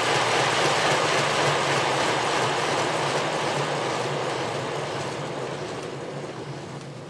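Bachmann K-27 large-scale model locomotive's motor, gearbox and driving wheels whirring on a roller test stand with a steady low hum. It fades away over the last few seconds as the locomotive slows to a stop.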